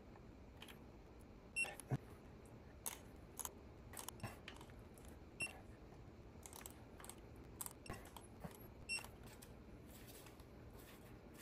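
Light metallic clicks and clinks from steel hand tools, a socket and wrench, being handled against the flywheel bolts and on the workbench. About a dozen come at irregular intervals, some with a short ring.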